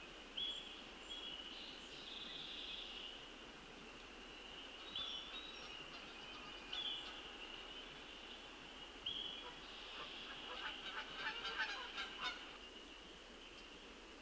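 Outdoor pond ambience at dawn: a steady high-pitched chorus with a handful of short calls rising over it, then a cluster of rapid calls between about ten and twelve seconds in.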